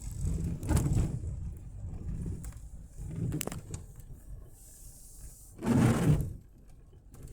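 Low rumble of a moving car heard from inside the cabin, with a sharp click about three and a half seconds in and a louder, half-second rustling knock about six seconds in.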